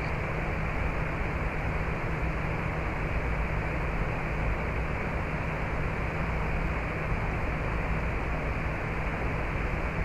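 Steady rushing noise with a faint low hum underneath, unchanging throughout.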